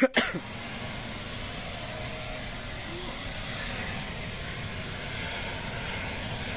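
Homemade flamethrower firing: a loud burst as the fuel jet lights at the start, then the steady rushing noise of the flame burning.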